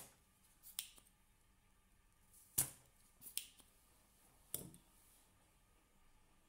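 Spring-loaded desoldering pump (solder sucker) snapping and clacking as it is fired on a solder joint of the circuit board and re-cocked: about five short, sharp clicks, the loudest at the start and in the middle, with a double click just after.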